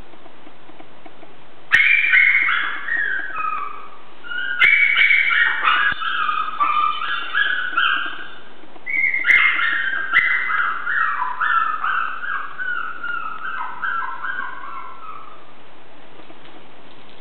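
Chihuahua puppies whimpering and yipping in three spells of overlapping high-pitched whines, each spell starting abruptly with a click and the whines falling in pitch, dying away before the end.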